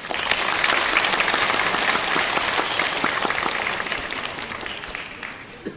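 Crowd applauding, many hands clapping at once. It starts suddenly and dies away near the end.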